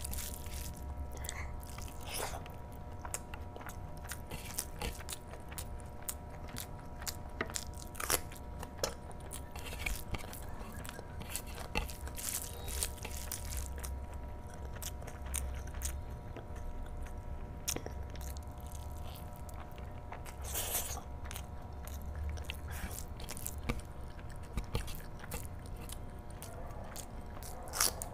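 Close-miked chewing and lip-smacking of hand-eaten rice and curry, with many sharp wet mouth clicks scattered throughout. A steady low hum runs underneath.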